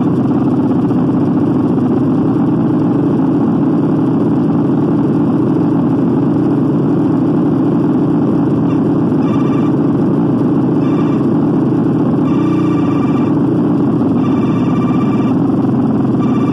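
Harsh noise wall: a dense, unchanging wall of loud distorted noise, heaviest in the low-mid range. A thin whistling tone cuts in and out several times in the second half.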